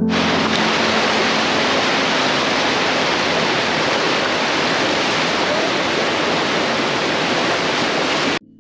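Water rushing out of a rock tunnel mouth into a pool, a steady, dense whitewater rush from a flow swollen by heavy rain. It cuts off suddenly near the end.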